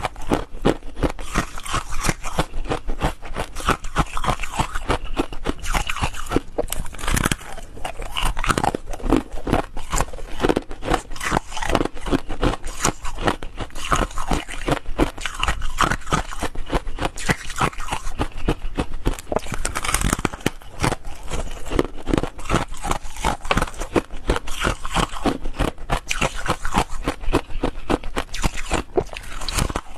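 Foam ice being bitten and chewed: a dense, continuous run of crisp crunches.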